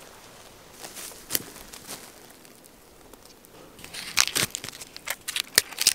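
Rustling and crinkling of tarp fabric and paracord being handled while a guyline is tied to the tarp's loop. The rustles are sparse at first and grow into a louder, busier run of crinkles and snaps about four seconds in.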